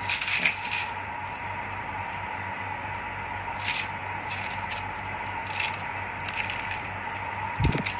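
Aluminium foil crinkling and rustling in short bursts, with light clatter from the cups, as steamed kutsinta cakes are unmolded and pushed into place on a foil-lined tray; a dull knock near the end.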